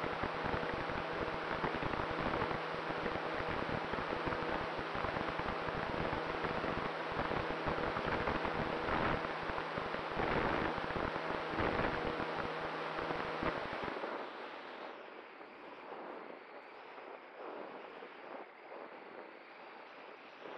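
Airflow buffeting the microphone of an onboard camera on a Cularis model glider in flight: a rushing, fluttering wind noise with a faint steady hum under it. About 14 seconds in it drops to a softer, thinner hiss.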